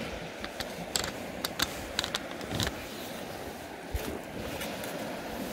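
Steady rush of a shallow river, with a run of small sharp clicks and ticks in the first half, the strongest about a second and a half in, and a single soft low thump about four seconds in.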